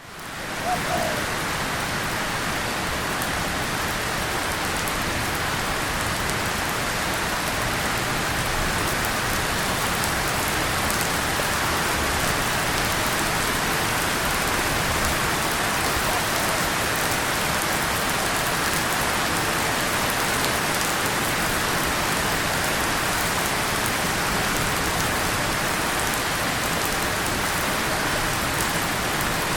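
Steady rain falling on a tin surface and on leaves, fading in over the first moment and then holding even.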